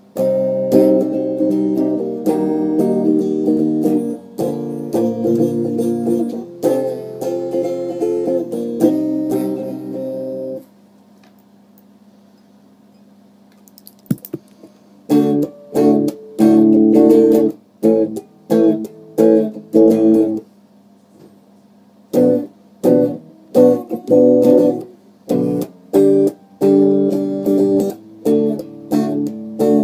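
Guitar strummed in chords, held and ringing for about ten seconds. After a pause of about four seconds it goes on in shorter, choppier strokes broken by brief gaps.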